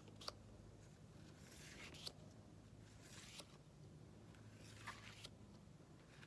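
Faint rustling and sliding of paper postcards being shuffled through by hand, with a few soft taps as card edges knock together.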